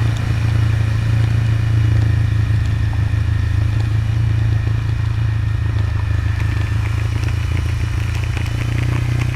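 Motorcycle engine running at a steady pace, a constant low drone with rattling and scraping over it from riding on a dirt road.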